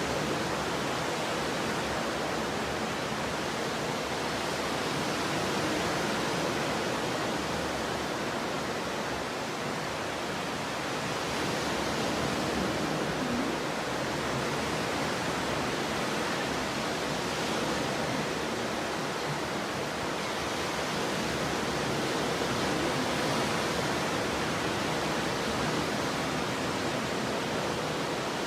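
Stormy ocean surf: a continuous wash of heavy waves breaking, swelling gently every five or six seconds.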